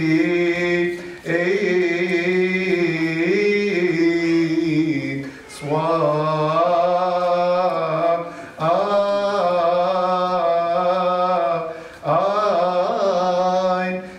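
A man's voice chanting solo in Coptic Orthodox liturgical chant, holding long notes that step up and down, in phrases with short breaks about five and a half, eight and a half and twelve seconds in.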